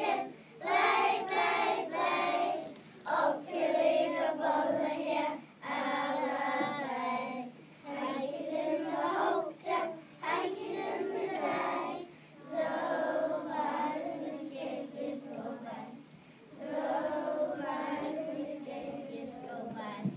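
A group of young children singing together, in phrases of a few seconds with short breaks between them. The song is one sung to comfort small children when they are unhappy.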